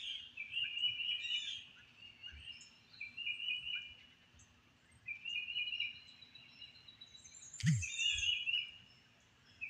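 Forest birdsong: one songbird repeats a short trilled phrase about every two seconds, with fainter higher chirps from other birds. A single sharp knock with a brief low falling thud comes about three-quarters of the way through.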